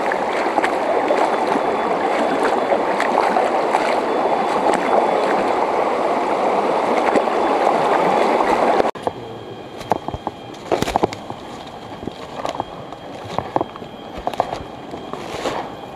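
Shallow stream water rushing and sloshing steadily around the legs of someone wading through it. About nine seconds in it cuts off suddenly to quieter footsteps and rustling on leaf litter and twigs, with scattered sharp crackles.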